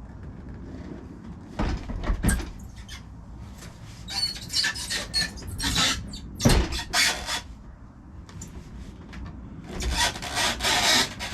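Sections of a 6-foot LED nutcracker figure being handled and fitted together: a few sharp knocks mixed with stretches of rubbing and scraping as the parts are pushed into place.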